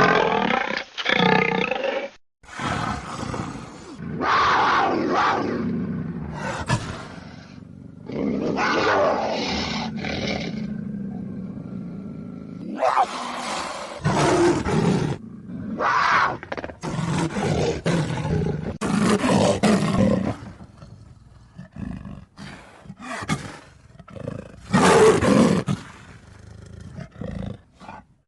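Animated-film sound effects of street dogs roaring and snarling, a string of separate roars of varying length with short breaks between them.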